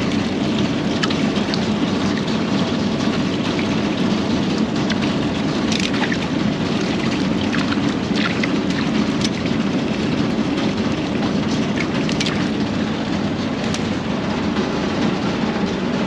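Rooftop air-conditioning units running with a steady rushing drone, low-pitched at its core, and a few faint ticks.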